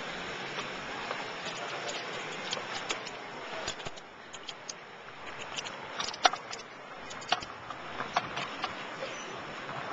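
City street noise heard from a moving bicycle: a steady hiss of traffic, with scattered sharp clicks and rattles, the loudest about six seconds in.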